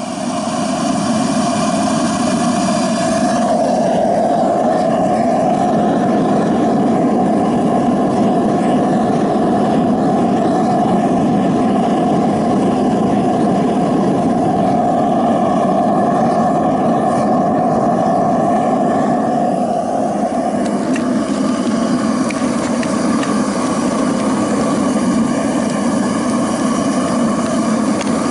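Waste-oil and propane burner firing a homemade melting furnace: a loud, steady rushing drone. The tone shifts about three seconds in, right after the fuel valve is turned up, and shifts again around twenty seconds in.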